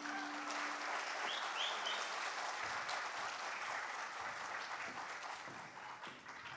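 Audience applauding, dying away gradually, with three short high chirps about a second and a half in.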